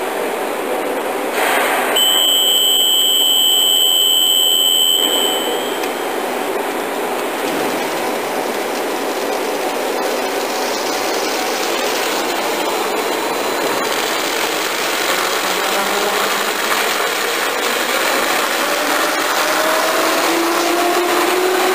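Karlville K5 Compact shrink sleeve seaming machine running: a steady mechanical whir with the rush of film over its rollers. A steady high electronic beep sounds for about three seconds near the start, and toward the end a whine rises slowly in pitch as the machine speeds up.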